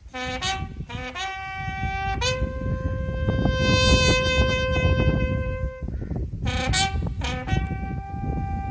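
A bugle call for police funeral honours: a run of short notes, a long held note, a few more short notes, then a long held note at a higher pitch.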